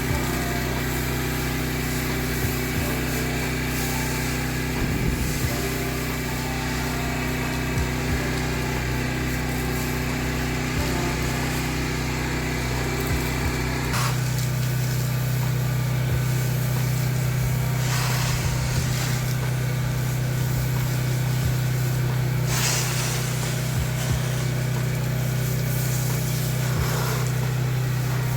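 Pressure washer engine running steadily, its note changing about halfway through, with a few short bursts of hiss.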